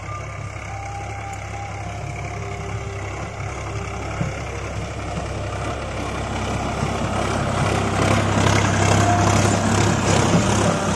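Sonalika tractor's diesel engine running steadily under load as it pulls a rotavator through dry soil. It grows louder as the tractor comes close, and from about three-quarters of the way in the rotavator's blades churning the soil add a loud rushing clatter.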